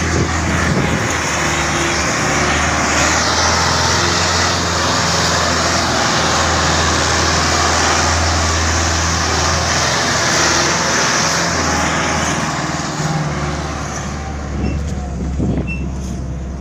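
Diesel tractor engine running steadily under load as it hauls a trailer heaped with sugarcane, a deep steady drone with loud rattle and road noise close by. The noise grows fainter after about thirteen seconds as the tractor pulls ahead.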